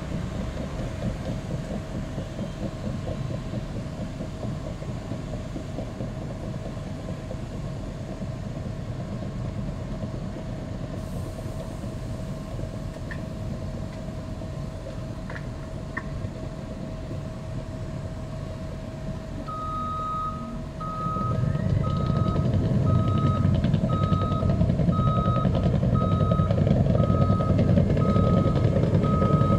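Caterpillar D5 crawler dozer's diesel engine running steadily as it works, then its reversing alarm beeping at an even pace of a little over one beep a second from about two-thirds of the way in. The engine gets louder as the machine backs toward the microphone.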